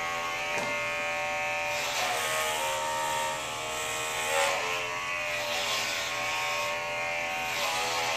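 Corded electric hair clippers buzzing steadily while being run over a scalp, the pitch wavering briefly a few times.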